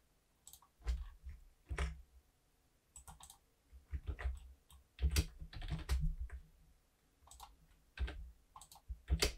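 Computer keyboard keys tapped in short, scattered clusters of a few keystrokes at a time, with pauses between them, as shortcuts are pressed while working in 3D software.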